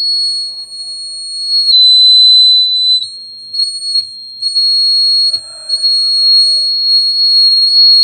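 Buzzer of a homemade heat-triggered fire alarm going off: one loud, steady, high-pitched tone that shifts slightly in pitch a few times. It sounds because a lighter flame has heated a bulb filament wired to a 9-volt battery, closing the circuit.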